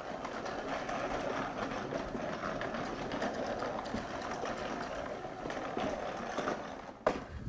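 Walk-behind broadcast spreader rattling steadily as it is pushed over the ground, its wheels and gear-driven spinner clattering. A sharp knock comes near the end, and the rattling stops.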